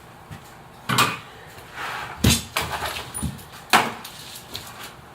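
Handling noises on a workbench: three sharp knocks or clunks about a second apart, with rustling and light clatter between them, as chainsaw bars and chains are handled and unpacked.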